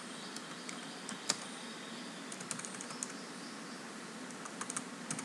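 Scattered keystrokes on a computer keyboard: a few isolated taps, then a quick run of keys near the end, over a steady faint hiss.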